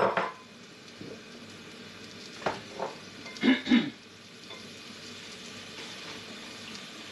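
Chopped onions sizzling steadily as they fry in hot oil in a stainless steel pot. A sharp knock at the start and a few more knocks about halfway through.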